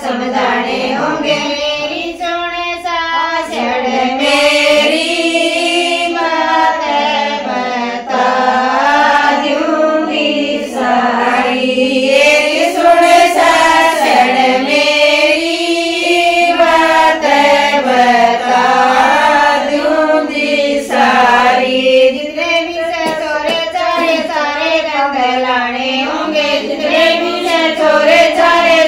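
Several women singing a Haryanvi folk song (geet) together in long, continuous phrases.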